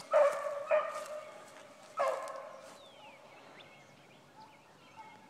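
Young beagle hounds baying while trailing a rabbit: three long bays in the first three seconds, each dying away.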